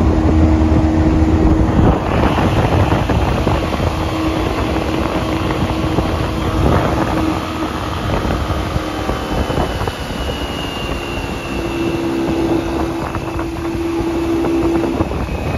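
Johnboat's outboard motor running at planing speed, with the rush of its wake and wind buffeting the microphone.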